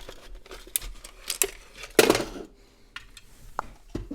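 Clicks, knocks and light clatter of hard plastic flip-clock cases being handled and set down, the loudest knock about two seconds in.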